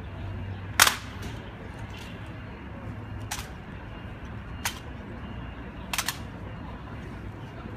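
Sharp clacks of an honor guard's rifle drill with M1 Garand rifles. There is a loud clack just under a second in, then single ones a few seconds apart and a quick pair about six seconds in, over a low outdoor rumble.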